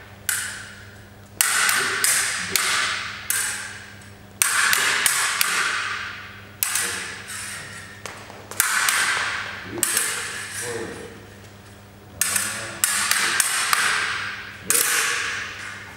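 Fencing sabre blades clashing again and again, sharp metallic strikes coming in quick clusters of two or three, each ringing out with a long echo in a large hall.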